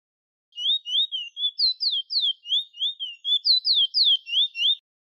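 Bullfinch (chestnut-bellied seed-finch) singing: a quick string of clear, slurred whistles, about four a second, with two runs of higher, downward-sweeping notes in the middle. The song starts about half a second in and stops shortly before the end.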